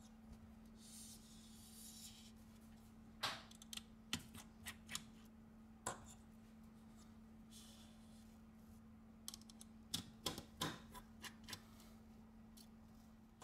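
Faint, scattered small clicks over a low steady hum: a precision Phillips screwdriver and tiny screws clicking against a tablet's metal mid-frame during disassembly. A few clicks come between about three and six seconds in, and a quicker cluster comes around ten seconds in.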